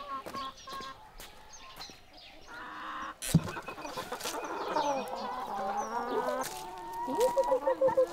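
A flock of chickens clucking and calling as they gather for feed, sparse at first, then busier from about halfway, with rapid repeated clucks getting louder near the end. A single sharp knock about three seconds in.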